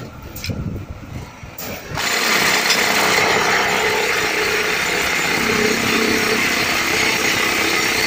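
Hollow concrete block making machine starting up about two seconds in, then running with a loud, steady mechanical noise.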